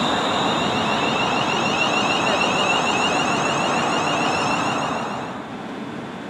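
Class 350 Desiro electric multiple unit moving along the platform, its traction inverters giving a high warbling whine that steps upward over the rumble of wheels and running gear. About five seconds in the whine stops and the sound drops to a quieter, steady train running noise.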